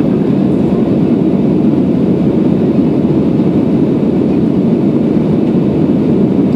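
Steady cabin noise of a jet airliner in flight: engine and airflow sound, deep and even, holding at one level throughout.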